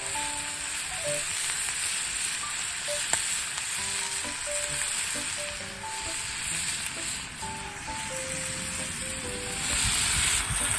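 Food sizzling in a hot pan, a steady hiss that grows louder near the end, with soft background music of sparse notes.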